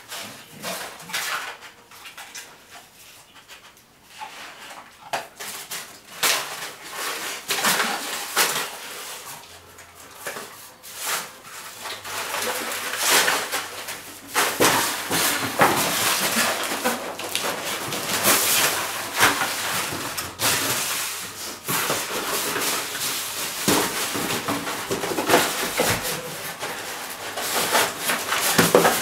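Bull terrier tearing and nosing through brown paper and a cardboard gift box, a continuous crinkling, rustling and scraping of paper and cardboard. It gets busier and louder in the second half.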